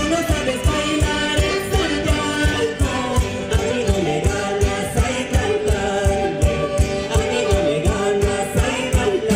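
Live Andean folk band playing a Santiago song: a man and a woman singing into microphones over guitars, violin and a steady low beat.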